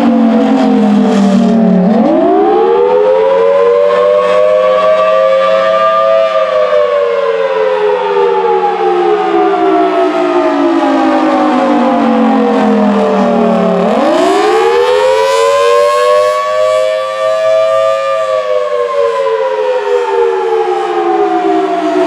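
Federal Signal Thunderbolt 1000T outdoor warning siren sounding the Attack signal. Its pitch climbs quickly for about four seconds, then slides slowly down for about eight, twice over. A steady low hum runs underneath.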